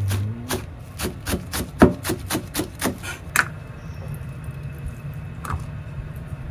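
A quick run of about a dozen sharp knocks, roughly four a second, then a single knock a couple of seconds later.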